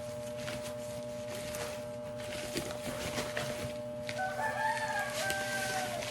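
A rooster crows once, one drawn-out call of under two seconds starting about four seconds in, over scattered light clicks and a steady faint hum.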